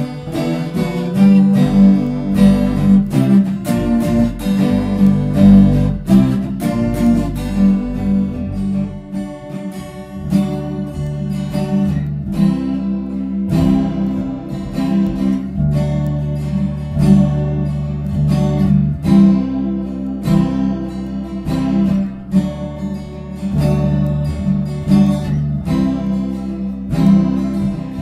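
Two guitars playing together without singing: an acoustic guitar strummed in a steady rhythm with a second guitar picking notes alongside.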